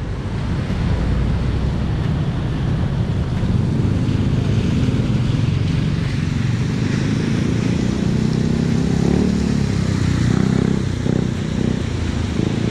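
Busy street traffic at a city intersection: cars and motorcycles running and passing, a steady, loud noise with no single vehicle standing out.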